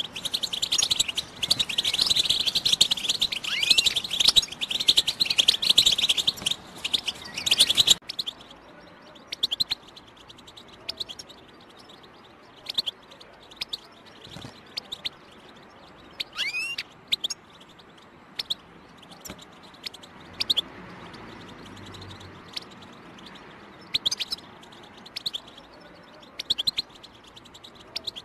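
European goldfinch singing a fast, dense twittering song for about eight seconds, then breaking into short scattered chirps and calls with pauses between them.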